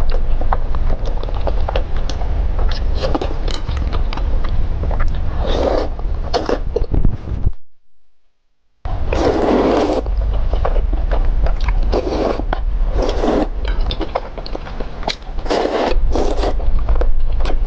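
Close-miked slurping and wet chewing of thick sweet potato noodles (hot and sour noodles) in chili broth: repeated short slurps with chewing between, over a steady low hum. The sound cuts out suddenly for about a second around eight seconds in.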